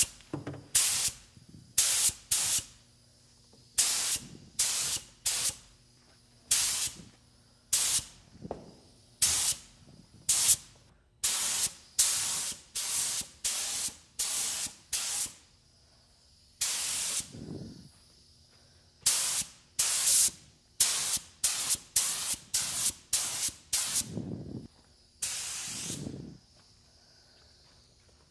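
Gravity-feed compressed-air paint spray gun hissing in a quick series of short trigger pulls, with a few longer passes of a second or more.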